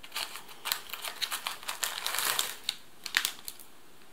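Foil ration pouches crinkling and rustling as they are handled, a quick run of sharp crackles that dies away near the end.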